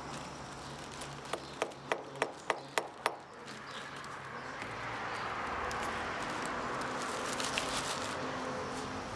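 A hammer tapping a nail into a small wooden sign: a quick run of about six sharp taps.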